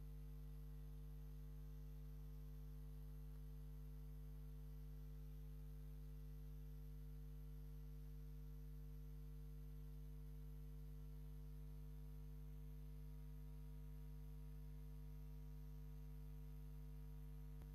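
A steady low hum over near silence, unchanging throughout.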